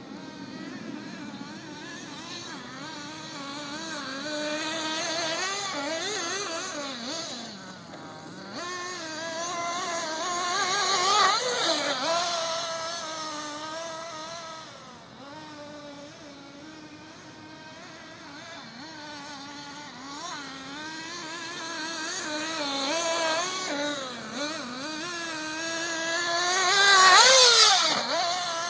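Radio-controlled off-road buggy running laps, its motor whining with a pitch that keeps rising and falling as the throttle is worked. It gets loud twice, about eleven seconds in and near the end, as the buggy passes close.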